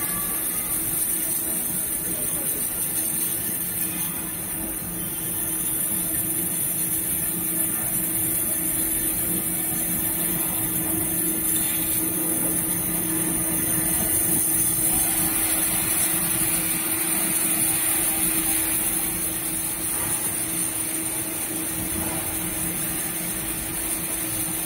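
Waterjet glass-cutting machine running: a steady high-pitched hiss over a constant low machine hum, getting a little louder and brighter for a few seconds past the middle.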